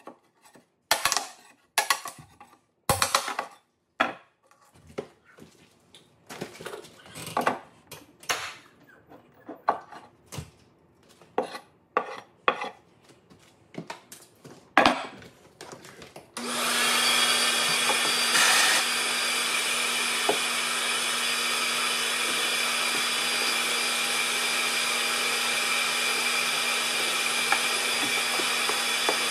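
A pry bar scraping and levering a nailed wooden carpet strip off a wooden stair tread, in irregular short scraping and knocking strokes. About sixteen seconds in, a shop vacuum starts suddenly and runs steadily with a constant hum.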